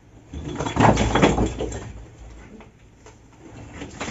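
Iron crowbar prying at a stone wall being torn down: a cluster of knocks and stones clattering down onto rubble about a second in, then quieter scraping.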